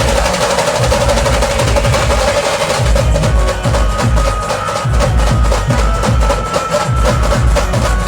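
A procession band playing with heavy drums. About three seconds in, dense rolling drumming gives way to an evenly spaced beat with deep bass-drum hits, while a melody line carries over it.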